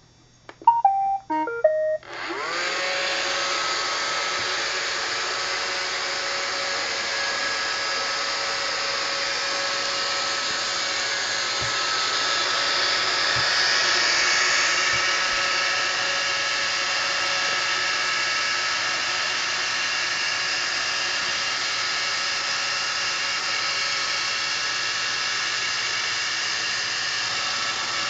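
iRobot Roomba 560 robot vacuum: a short melody of stepped beeps as its Clean button is pressed, then about two seconds in its vacuum motor and brushes spin up with a rising whine and run steadily.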